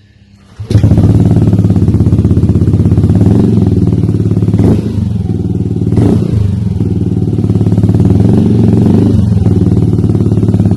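Yamaha Aerox scooter engine running loud and steady through a Triton Neuro Carbon Kevlar aftermarket exhaust. It cuts in suddenly just under a second in, with a fast, even exhaust pulse and only slight wavers in engine speed.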